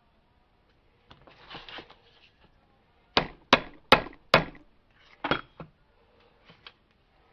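Hammer blows on the steel U-joint and yoke of a front axle shaft held in a vise: four quick sharp strikes a little past three seconds in, then one more about a second later, after a brief scraping about a second in.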